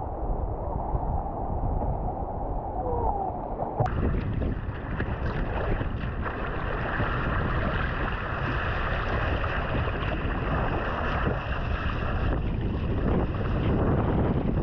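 Wind buffeting the microphone over the wash of ocean waves breaking around the kayak. About four seconds in, the sound changes abruptly to a fuller, hissier rush of breaking surf.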